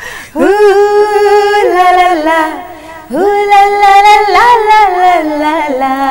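A woman singing a film song unaccompanied. She holds long notes, sliding and turning between them, and settles on a lower held note near the end.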